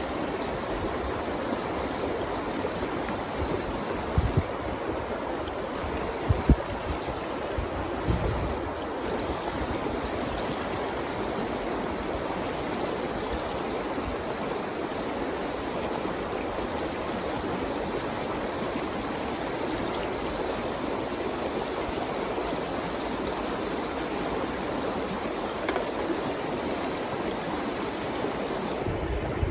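River water flowing with a steady rushing sound, with a few brief low thumps about a third of the way in.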